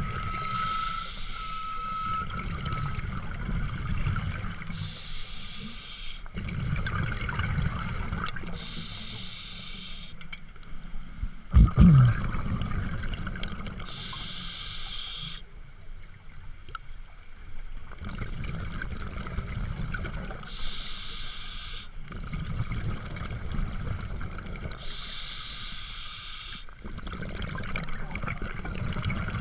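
Scuba diver breathing through a regulator underwater: a hiss of breath alternating with a low rumble of exhaled bubbles, repeating every five seconds or so. A single loud knock about twelve seconds in.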